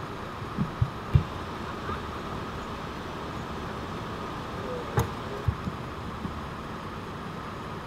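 Steady hum of an idling vehicle, with a few dull knocks in the first second or so and a single sharp click about five seconds in.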